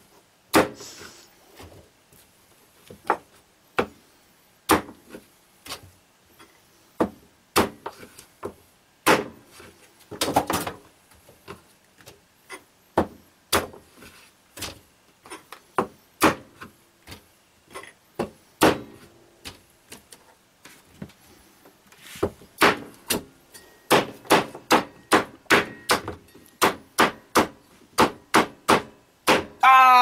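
Cleaver chopping through a large, hard winter squash and striking the cutting board, in sharp separate knocks: irregular at first, then a faster run of about two chops a second near the end.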